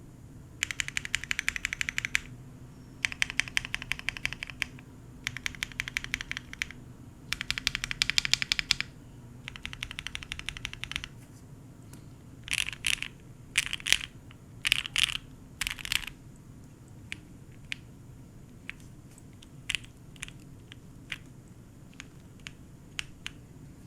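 Cannonkeys Savage65 custom mechanical keyboard typing, with lubed 43Studio OpBlack linear switches on a POM plate under GMK keycaps. It opens with five fast runs of rapid key presses, each about a second and a half long. About halfway through come a few heavier, longer strokes, then slower single key presses.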